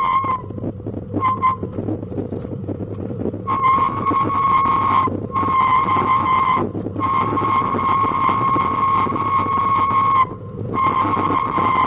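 A steady high-pitched squeal from a bicycle and pet trailer rolling along a paved road. The squeal cuts out and comes back several times over a constant rumble of wheels on the tarmac.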